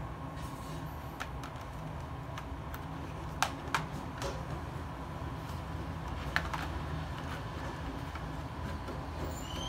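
A few sharp plastic clicks and taps, two close together about three and a half seconds in, as rOtring Isograph technical pens are handled and lifted from their plastic case tray, over a steady low hum.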